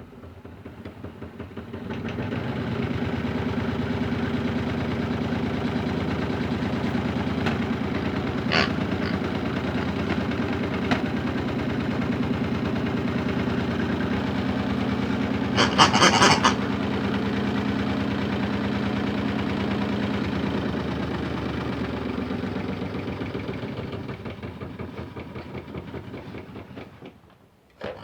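Hotpoint toy washing machine's small electric motor spinning the drum. It speeds up over the first two seconds and runs with a steady hum, with a brief rattle about halfway through, then slows and winds down near the end.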